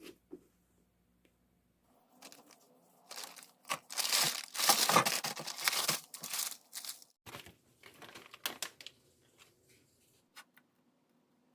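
Packaging being torn open and crinkled by hand, a dense run of crackling that is loudest in the middle and thins out to a few crinkles near the end.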